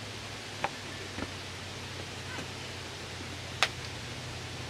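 Footsteps on rock: a few sharp, irregular scuffs and clicks, the loudest about three and a half seconds in, over a steady low hum.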